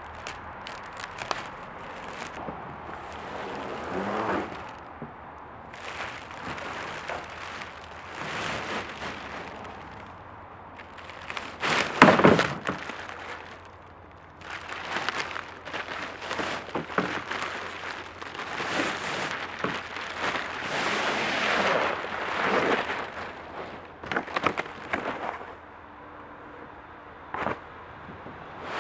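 Clear plastic packing wrap being torn open and pulled off a kayak, crinkling and ripping in irregular bursts, with cardboard packing sliding and rustling; the loudest is a sudden sharp rip about twelve seconds in.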